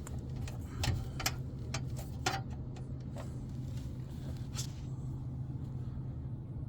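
Aprilaire humidifier running with its new canister filling: a steady low hum with several sharp clicks in the first two and a half seconds and one more a little before five seconds.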